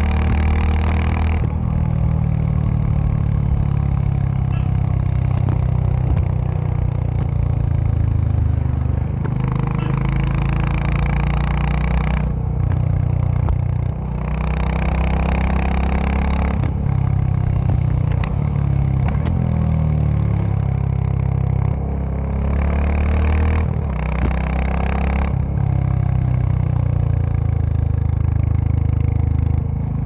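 Royal Enfield Classic 350's single-cylinder engine and exhaust running on the move, the low exhaust note shifting up and down in pitch several times.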